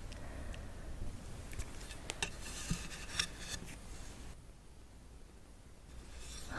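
Clothes hangers and garments being handled and put away, with a cluster of light clicks and taps about two to four seconds in.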